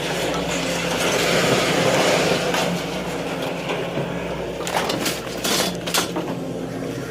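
Scrap metal being moved: a dense clattering rattle over a steady engine hum, then several sharp metal clanks about five to six seconds in.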